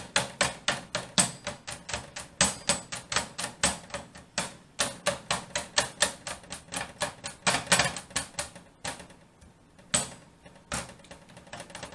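Kitchen knife stabbing raw meat over and over, sharp knocks about four a second as the point strikes through. The stabbing breaks off briefly about nine seconds in, then starts again.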